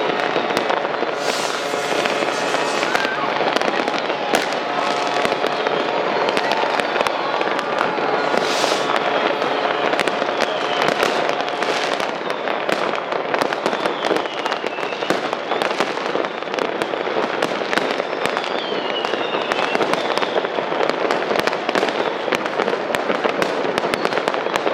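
Dense New Year's Eve fireworks: a continuous barrage of firecrackers and rockets cracking and banging, with several falling whistles from whistling rockets overhead.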